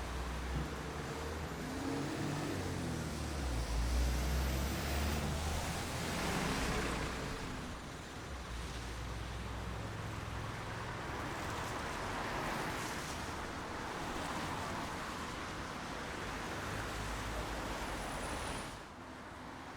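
Steady rain with a low rumble underneath that swells a couple of times. The sound drops abruptly in level near the end.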